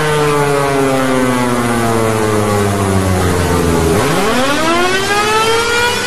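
Small LSE WASI electric motor siren winding down, its wail falling in pitch for about four seconds, then starting up again with a sharply rising wail.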